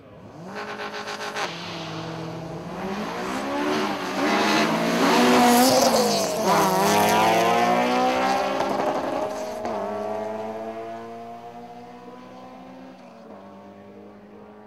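Two compact tuner cars launching off the drag-strip start line at full throttle. Their engines climb in pitch and drop back at several upshifts, loudest a few seconds in, then fade as the cars run away down the strip.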